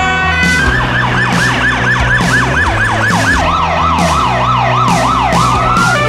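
Emergency-vehicle siren on a fast yelp, a quick rising wail repeated about four times a second, switching about halfway through to a lower, zigzag yelp.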